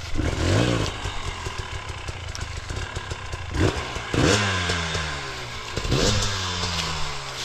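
Enduro dirt bike engine revved hard in three bursts, its pitch falling away after each as the throttle is let off.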